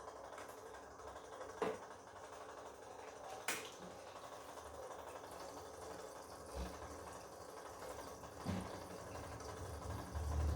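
Bosch Komfort-Klasse washing machine partway through a wash cycle: a quiet low hum broken by four separate knocks, with a louder low rumble building near the end.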